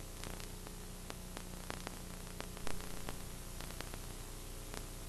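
Steady hiss and low mains hum from a blank stretch of an old video recording, with scattered faint clicks and one slightly louder blip a little past halfway.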